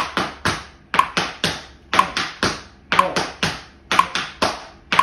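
Tap shoes doing shuffle steps on a wooden floor: three quick taps per beat (the ball of the foot kicking out, pulling back and setting down), then a short rest, alternating feet. A metronome beeps once a second at 60 BPM.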